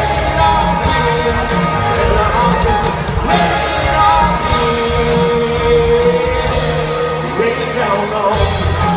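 Live pop-rock band playing with a singer, heard from the audience in a large arena. About halfway through, a long held note lasts a couple of seconds.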